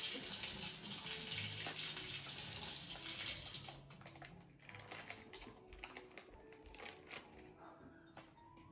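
Kitchen tap running for about three and a half seconds, then shut off, followed by light clicks and taps of utensils.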